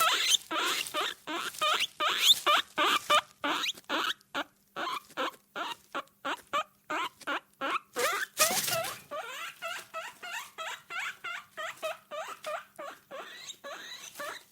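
Guinea pig squeaking in a fast run of short, pitch-bending calls, about two or three a second, with a brief louder burst of noise about eight seconds in.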